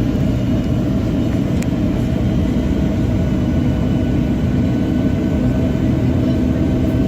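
Airliner cabin noise: the engines and airflow make a steady, loud rumble, with a few faint steady whining tones above it.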